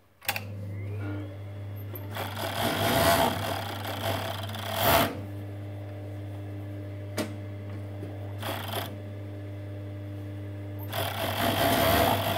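Industrial four-thread overlocker starting with a click, its motor then humming steadily. It stitches a seam in knit fabric in two runs, the first about 2 to 5 seconds in and the second near the end, with a brief run between them.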